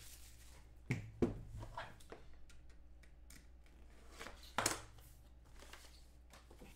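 Hands opening a sealed box of Panini Plates & Patches football cards: faint rustling of plastic wrap and cardboard, with sharp taps twice about a second in and once again past the middle.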